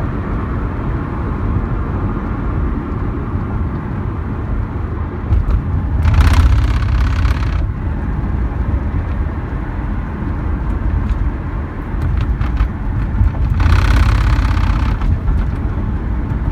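Lexus IS 250C on the move, heard from inside the cabin: steady road and engine rumble, with scattered faint knocks from the folding hardtop roof. Twice, about six and fourteen seconds in, a louder rushing noise swells for a second or so.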